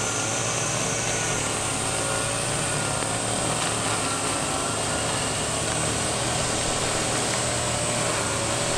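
Petrol brush cutter engine running steadily at a distance, its pitch wavering slightly, with a steady high-pitched drone of cicadas.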